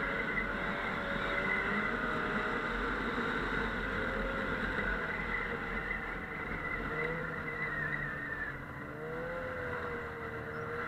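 Snowmobile engine running during a ride, its pitch wavering up and down as the throttle changes, easing off slightly near the end.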